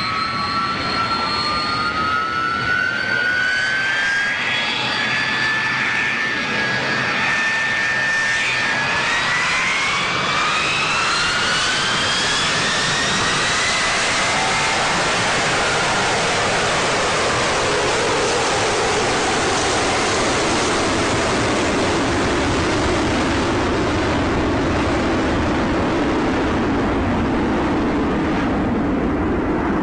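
McDonnell Douglas DC-10's three turbofan engines spooling up to takeoff power. A whine climbs in pitch, steeply for a few seconds about ten seconds in, then gives way to a steady loud rush as the airliner accelerates down the runway on its takeoff roll.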